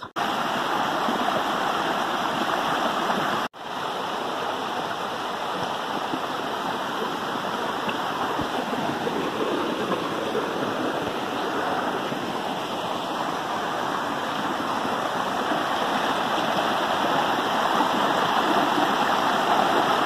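Shallow rocky stream rushing steadily over stones. The sound cuts out briefly about three and a half seconds in and resumes a little quieter.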